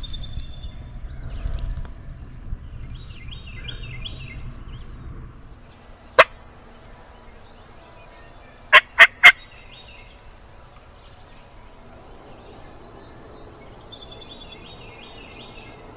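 A wild turkey gobbling twice, each time as a short rattling run of notes about a second long. Loud, sharp clicks break in once about six seconds in and then three times in quick succession near nine seconds.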